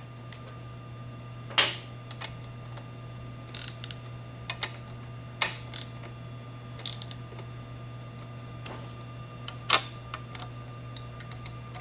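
Ratchet and socket tightening exhaust bracket bolts: scattered sharp metallic clicks and clinks, a second or more apart, over a steady low hum.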